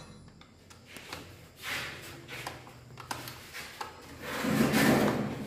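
Screwdriver turning a circuit breaker's terminal screw, with small scrapes and clicks of metal, and a louder rubbing noise about four and a half seconds in.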